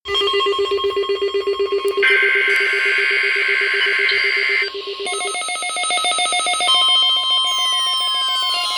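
Layered electronic alert tones: a rapid trilling tone like a phone ring, joined about two seconds in by higher steady tones. Around five seconds in they change to other pulsing beeps, with falling sweeps near the end.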